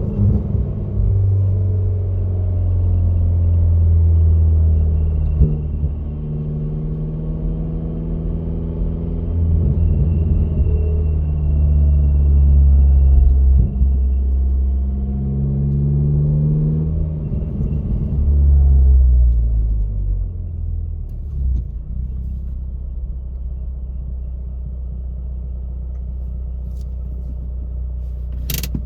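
Car engine whose speed rises and falls several times, then settles to a steady low idle. There is a sharp click near the end.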